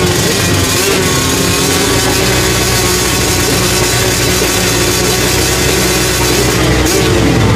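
A pack of motocross bikes running together at the start line, engines revving and wavering in pitch.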